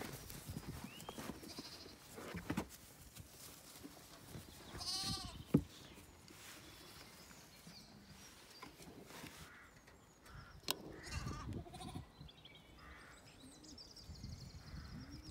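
Zwartbles lambs bleating: one clear high bleat about five seconds in, followed at once by a sharp knock, then a few shorter calls later, over rustling and handling noise.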